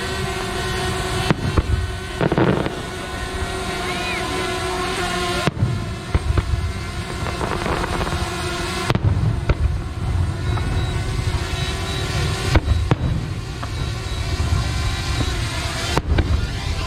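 Aerial fireworks going off: a continuous low rumble of booms with several sharp bangs and crackling.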